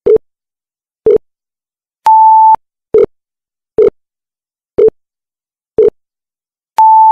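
Countdown timer sound effect ticking about once a second, with a half-second beep about two seconds in and a closing beep at the end that marks the 10-second answer time running out.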